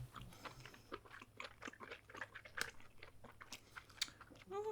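Close-miked mukbang eating sounds: cooked giant octopus being chewed, with many quick wet clicks and smacks. Near the end comes a brief rising hum from the eater.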